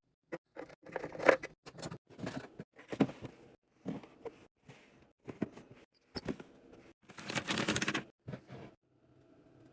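Containers and packaging being handled during pantry and fridge restocking: scattered clicks, taps and rustles, with a longer rustle about seven seconds in.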